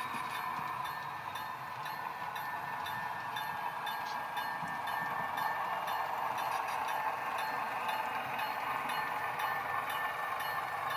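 Model railroad diesel locomotive and freight cars rolling slowly along the track: a steady running whir with a regular run of light clicks as the wheels cross the rail joints.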